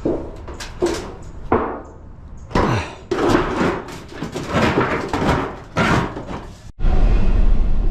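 Repeated metal bangs and clattering from lightweight scrap steel being handled and loaded. Near the end the sound cuts off abruptly into a steady low rumble.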